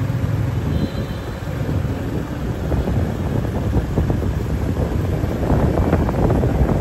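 Riding a motorbike: wind buffeting the microphone over the rumble of the engine and road, getting a little louder near the end.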